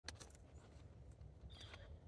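Near silence: a low steady rumble with soft clicks of a cow cropping grass close by, and one short high chirp about one and a half seconds in.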